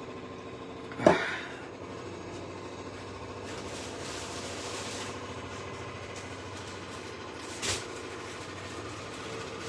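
Steady electrical appliance hum with several held tones, from the kitchen where the hob is heating a pan and a pot of water. A sharp knock about a second in and a smaller one near the end.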